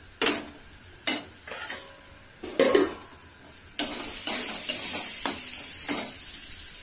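A spatula knocks and scrapes against a metal kadai several times, one knock about two and a half seconds in being the loudest. About four seconds in, sliced onions frying in oil start a steady sizzle, with the spatula still stirring and knocking.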